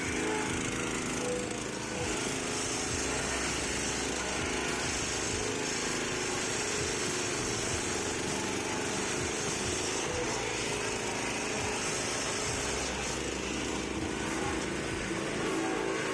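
Small petrol-engine-driven cassava stump chopper running steadily.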